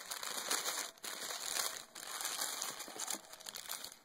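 Packing paper rustling and crinkling as it is pulled out of a shipping box, in several spells with short pauses between them.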